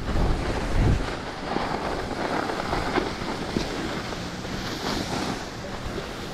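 Skis hissing and scraping over packed snow while skiing downhill, under wind buffeting the microphone, with the strongest gusts of rumble in the first second.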